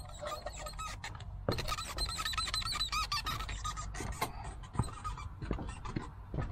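Wooden deck boards squeaking and creaking under footsteps, in a string of short squeals and clicks, loudest from about a second and a half in. The deck is sinking at the house wall because the board it was screwed to has rotted away, so it flexes and squeaks when walked on.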